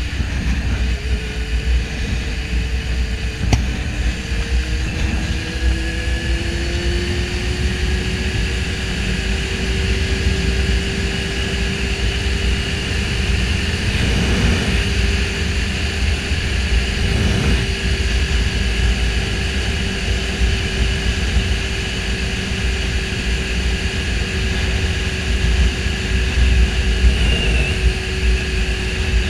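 Suzuki GSX-R750 inline-four sportbike engine running at road speed under heavy wind rumble on the microphone. The engine note rises over the first several seconds, then holds steady at cruise.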